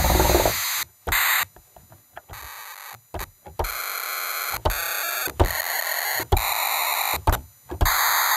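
NES-style 8-bit noise channel of an M5Stack synthesizer played from a MIDI keyboard: a run of hissing noise notes at different pitches, some plain hiss and some buzzier, each starting with a short thump, the last one held.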